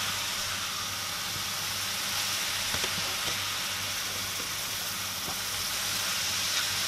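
Shredded carrots, bell peppers and onions sizzling in oil in a stainless steel frying pan, stirred with a plastic slotted spatula that scrapes and taps the pan a few times. A low steady hum runs underneath.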